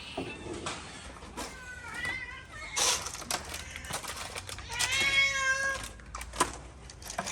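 Cats meowing while waiting to be fed: a short meow about two seconds in and a longer, louder one about five seconds in, with scattered sharp clicks and taps between them.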